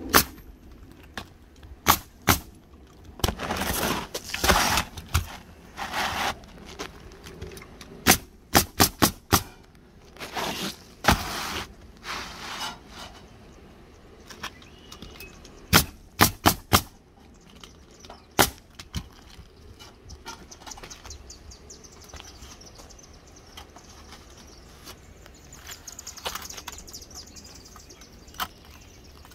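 Pneumatic coil roofing nailer firing nails into asphalt shingles: sharp shots, some single and some in quick runs of four, with longer scraping noises between them in the first half. The shots thin out after about twenty seconds.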